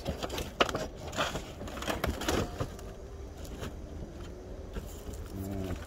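Sheet-metal flashing scraping and crinkling against asphalt shingles as it is worked in under them to cover a hole, with a few sharp clicks in the first couple of seconds, then quieter.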